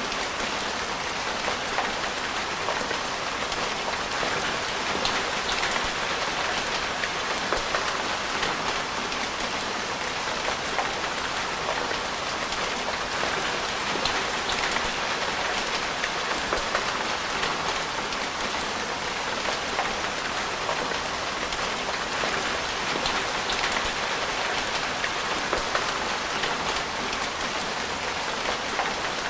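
Steady rain falling, with single drops ticking sharply here and there.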